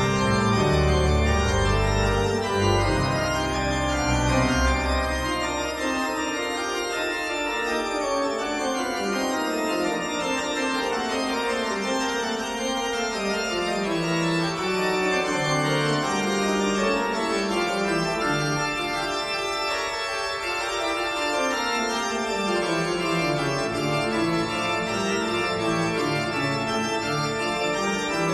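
Background organ music: sustained keyboard chords, with deep bass notes that drop out about six seconds in.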